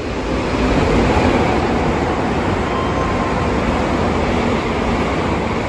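A train passing through the station without stopping. It makes a loud, steady rush of wheels and air that builds over the first second and begins to ease near the end.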